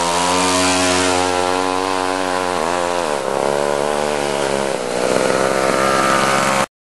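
McCulloch MC-92 two-stroke kart racing engine running at high revs under way, its pitch dipping sharply and recovering a few seconds in as the throttle is eased and reopened. The sound cuts off abruptly near the end.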